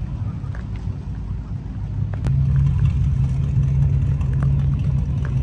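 Car engine running with a deep, steady low rumble that gets louder about two seconds in, as the car comes close.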